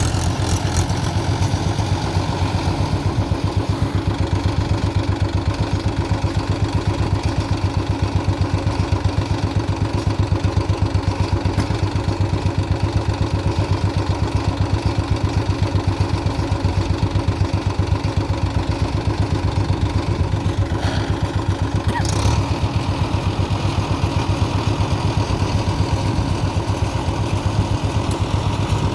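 Mahindra Yuvo 575 DI tractor's diesel engine running steadily while driving a baler, with a fast even pulse. A short sharper noise breaks in about three quarters of the way through.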